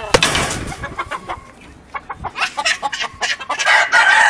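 Chickens clucking in short, sharp calls, with a brief burst of rustling at the start.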